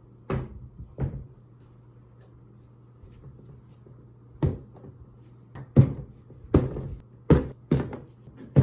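Latches of a hard plastic rifle case being flipped open one after another, a quick run of about eight sharp plastic snaps and clicks from about four and a half seconds in. Two knocks about a second apart near the start as the case is handled.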